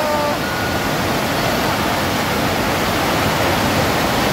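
FlowRider surf simulator's pumped sheet of water rushing steadily up the wave surface: a loud, constant hiss.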